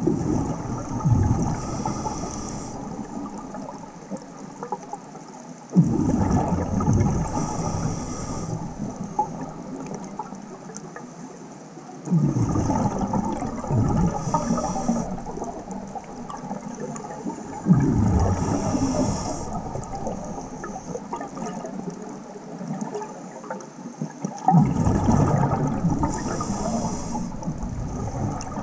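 Scuba diver breathing through a regulator, about five breaths: each exhalation is a sudden gush of bubbles that gurgles and fades over a few seconds, and each inhalation is a short high hiss from the regulator.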